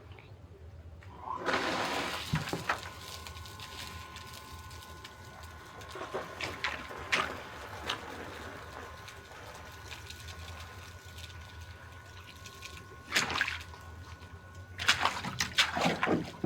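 Pump drawing water out of a flooded pit: water gurgling and splashing over a steady whine, with several louder splashes near the end.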